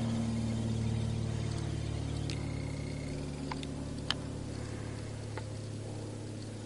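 A steady low machine hum with a few light clicks, the clearest about four seconds in.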